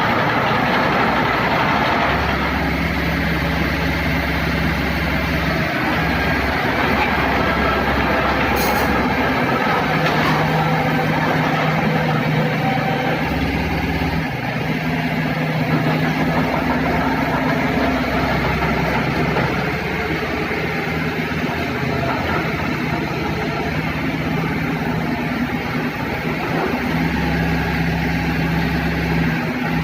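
Mitsubishi BD2G bulldozer's diesel engine running steadily, its deep low note coming and going at times, with one sharp click about nine seconds in.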